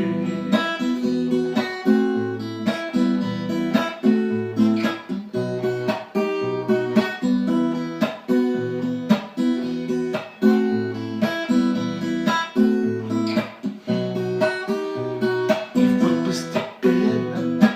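Acoustic guitar strummed in a steady rhythm: an instrumental break between verses of a song.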